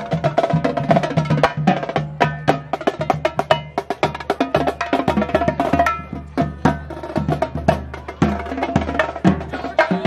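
Marching snare and bass drums playing a fast, rhythmic drum cadence, with sharp, closely spaced stick hits over deeper drum tones.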